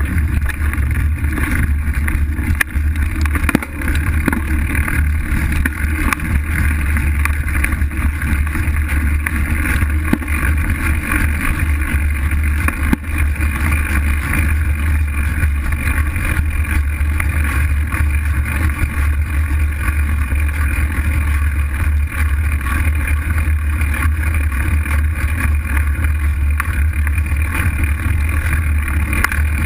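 Loud, steady riding noise from a fat bike on a dirt trail: a low rumble of wind and the fat tyre rolling over packed dirt, picked up through a handlebar-mounted camera.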